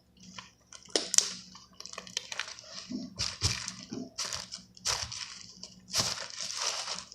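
Hands kneading and stretching fluffy slime freshly mixed with lotion, giving irregular crackling, squishing bursts.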